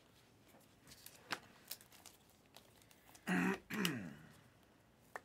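A man clears his throat once, about three seconds in, the loudest sound here. Around it, a few faint clicks and slides of glossy trading cards being flipped through a stack in the hands.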